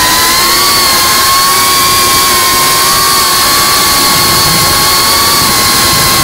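FPV racing drone's brushless motors and propellers whining in flight: a loud, high, steady whine that wavers slightly in pitch, over a constant hiss.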